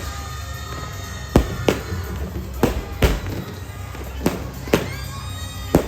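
New Year's fireworks and firecrackers going off, about seven sharp bangs at irregular intervals, over music and voices.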